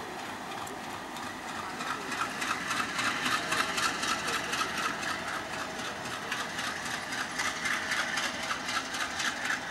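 Diesel locomotive engine running as it moves a brake van slowly during shunting. It grows louder about two seconds in, with a fast, even rhythmic beat.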